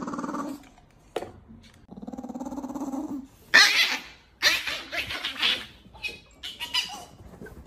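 Chihuahua growling: a low, rattling growl at the start and another from about two seconds in. From about three and a half seconds in come several short, sharp yaps as it faces off with a cat.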